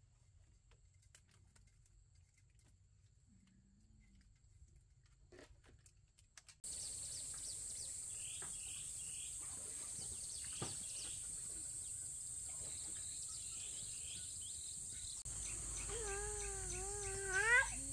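Faint light taps and clicks of bamboo being handled. From about a third of the way in, outdoor ambience takes over: a steady high insect hiss with birds chirping over and over. Near the end a brief wavering call rises above it as the loudest sound.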